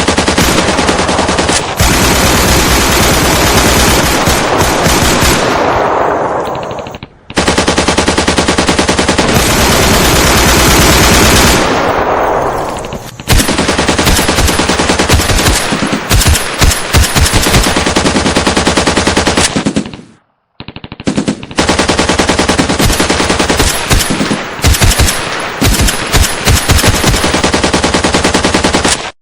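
Machine-gun fire in long, rapid, continuous bursts. The firing fades out and breaks off briefly about a quarter of the way in, again near the middle, and once more about two-thirds of the way through, each time resuming at full force.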